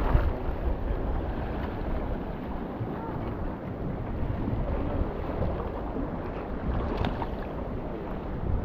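Wind buffeting the microphone over surf washing against the granite jetty rocks, a steady rumbling noise with no distinct events.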